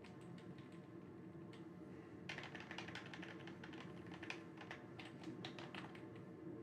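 Typing on a computer keyboard: a few scattered keystrokes, then a quick run of key clicks starting a little over two seconds in, over a steady low hum.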